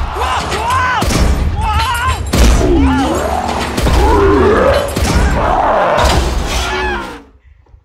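Cartoon fight soundtrack: shouting character voices over heavy thuds, crashes and a deep rumble, with music underneath; it all cuts off about seven seconds in.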